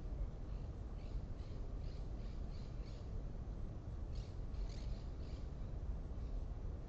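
Faint bird chirps, short high notes repeated about three a second for a couple of seconds, then a few more after a short pause, over a steady low rumble.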